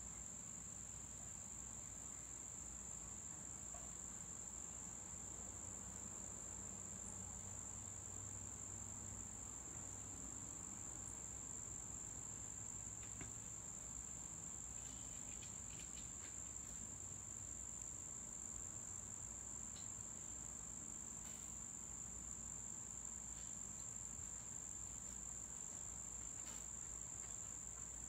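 Steady high-pitched insect chorus, one continuous shrill tone, with a few faint clicks in the second half.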